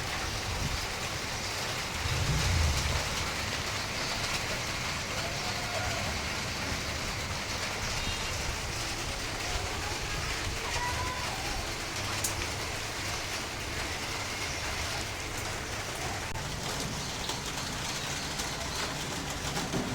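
Steady rain falling, an even hiss across the whole stretch. A low rumble swells briefly about two to three seconds in.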